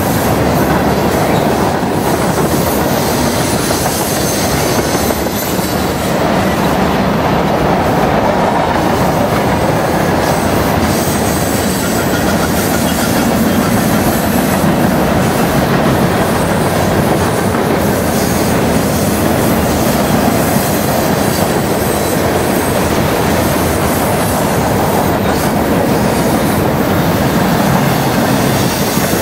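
Freight cars of a long mixed freight train rolling past at close range, their steel wheels on the rail making a loud, steady, unbroken noise.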